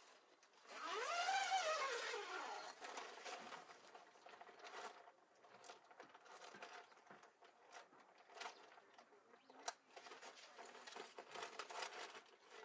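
A cat meowing once about a second in, one long call that rises and then falls in pitch, followed by faint scattered clicks and rustling with one sharper click near the ten-second mark.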